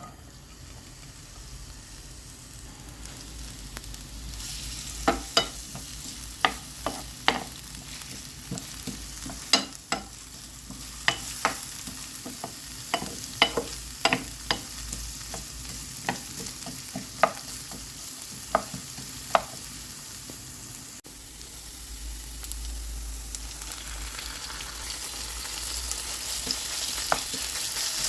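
Food sizzling as it fries in a pan, with a utensil clicking sharply against the pan many times as it is stirred, from about five seconds in until about nineteen seconds in. The sizzle grows louder near the end.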